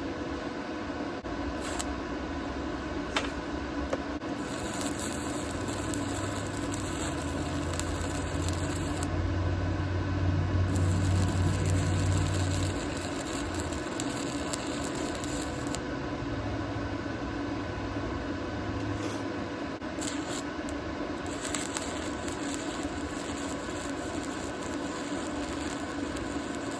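Electric arc welding: crackling, hissing arc in three runs of several seconds, starting and stopping abruptly, over a steady shop hum.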